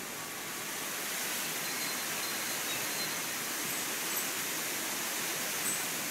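Strong hurricane wind blowing steadily, a little louder after about a second.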